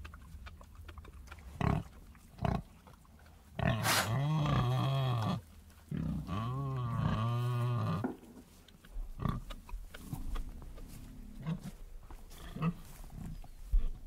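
Pigs grunting: two short grunts, then two long calls of about one and a half to two seconds each whose pitch keeps rising and falling, then softer scattered grunts.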